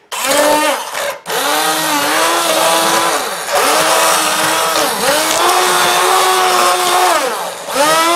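Handheld immersion blender switching on suddenly and running loud in a pot of cooked potato chunks and broth, its motor pitch rising and dipping over and over. It cuts out briefly about a second in, then starts again.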